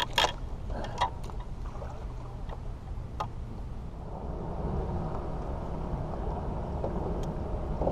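A few sharp knocks and clicks of fish and gear being handled on an aluminium boat deck, then, from about halfway, a steady low rumble with a faint hum: a bass boat's electric trolling motor running.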